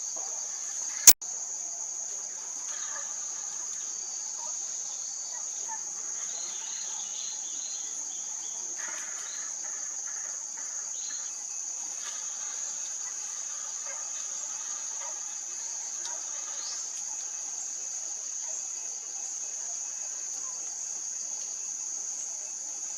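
Steady high-pitched drone of insects, with one sharp, loud click about a second in.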